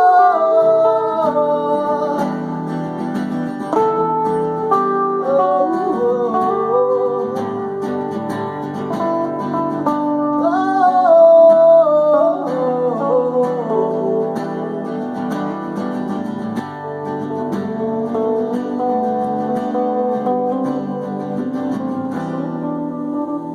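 Acoustic country-folk song with plucked guitar chords and a wavering, gliding melody line on top.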